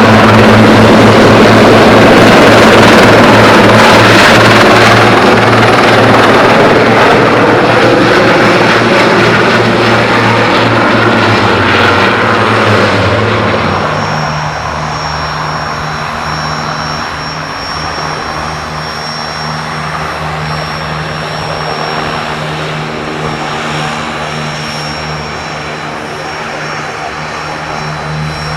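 Aircraft engine and rotor or propeller noise, loud for the first dozen seconds or so. About thirteen seconds in it drops away to a quieter steady hum with a faint high whine.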